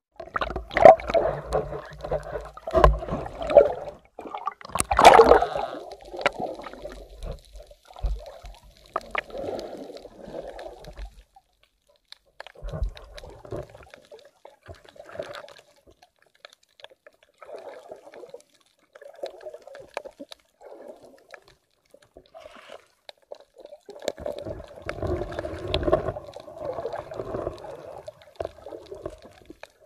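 Water gurgling and sloshing heard through a camera held just under the sea surface, in irregular bursts. It is loudest in the first few seconds and again near the end, with quieter bubbling in between.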